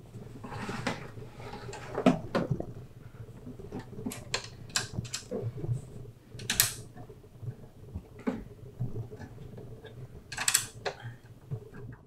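Metal clicks, knocks and short scrapes from a GPU drawer being pushed into a rack server chassis and fastened in place, with sharp clicks about two seconds in and brief scraping rasps near the middle and near the end.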